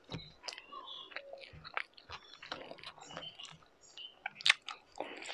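A person chewing a mouthful of rice and meat, eaten by hand: scattered short wet clicks and smacks of the mouth, with one sharper click about four and a half seconds in.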